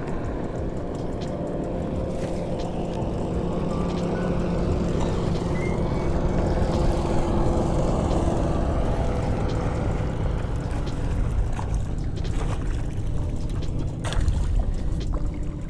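Bow-mounted electric trolling motor humming steadily over water and wind noise. About fourteen seconds in, a hooked fish thrashes and splashes at the surface beside the boat.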